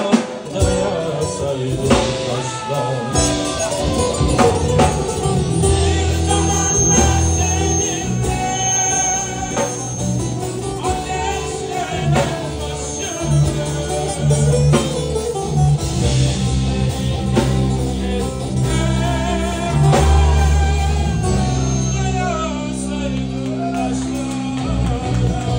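Live band music: a man singing into a microphone, backed by guitar, bass notes and drums.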